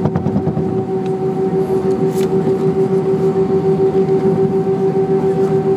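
Airbus A320 cabin noise while taxiing: the jet engines at idle give a steady hum with one held tone, over a low rumble from the aircraft rolling on the taxiway. A single knock is heard right at the start.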